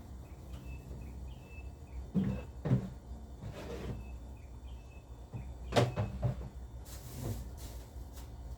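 Household items being handled: a few knocks and clunks, like a cupboard or fridge door and containers being set down, about two seconds in and in a quick cluster near six seconds, with brief rustling between.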